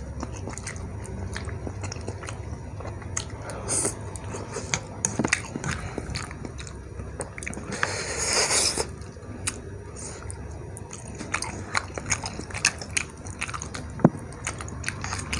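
Close-up mouth sounds of a person eating soupy instant noodles: wet chewing with many short smacks and clicks, and a longer slurp about eight seconds in.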